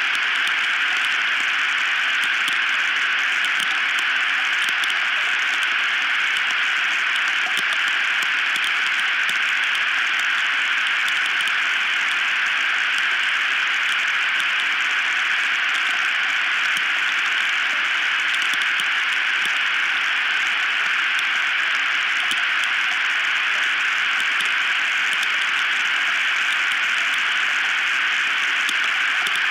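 Steady, even hiss of high wind on an outdoor nest camera's microphone, unchanging throughout.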